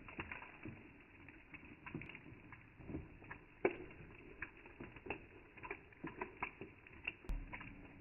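Water drops falling and pattering in an irregular scatter of short taps, with a louder tap about halfway through.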